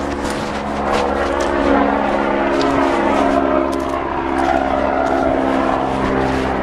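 Helicopter flying low directly overhead, a steady loud drone of rotor and engine that grows louder about a second in.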